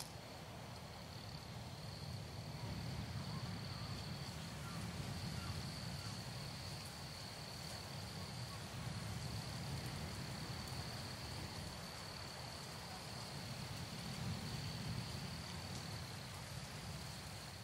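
Night insects, crickets, trilling in one steady high-pitched note, over a low steady rumble.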